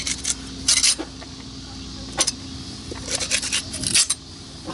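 A knife cutting a stingray's fin away along the side of its body: a few short, sharp scraping clicks as the blade works through, bunched together near the end.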